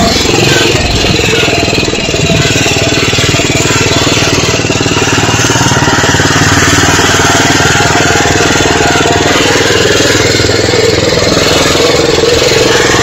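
Engine of an open-top vehicle running steadily while it is driven at low speed, with road and wind noise mixed in.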